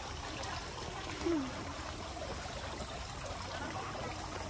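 Steady rush of running water, like a trickling stream. There is a brief low sound a little over a second in.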